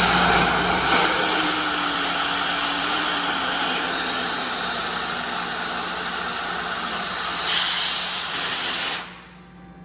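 Compressed air from an Atlas Copco GX7 rotary screw air compressor blowing out of an opened valve: a loud, steady hiss that swells briefly near the end and stops abruptly about nine seconds in as the valve is shut. The compressor's steady low hum runs underneath throughout.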